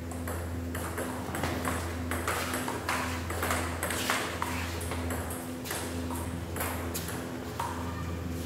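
Table tennis rally: the ball clicking sharply off the players' bats and the table in quick, irregular alternation, over a steady low hum.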